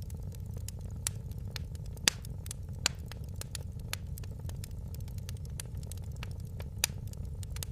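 Wood fire crackling in a fireplace: irregular sharp pops and snaps over a steady low rumble. The loudest pops come about two seconds in and near the end.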